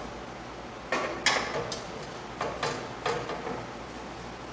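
Small metal clicks and scrapes of screws being fitted and hand-tightened into the sheet-metal igniter housing of a propane smoker, in several short separate strokes.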